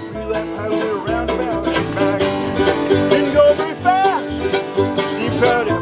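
Bluegrass string band playing a tune, with fast banjo picking to the fore and guitar behind, and some notes sliding in pitch.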